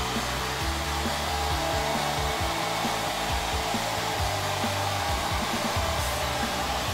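Handheld far-infrared hair dryer blowing steadily, drying a client's wet, freshly straightened hair.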